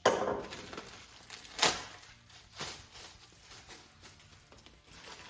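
Exhaust parts and packaging being handled during unboxing: rustling wrapping with two sharp knocks, one at the start and one about a second and a half in, and lighter clicks after.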